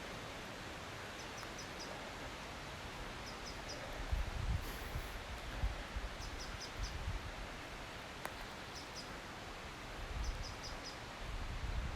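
A small songbird repeating a short, high call of three or four quick notes every couple of seconds over a steady outdoor hiss. Irregular low rumbling comes in and out from about a third of the way in.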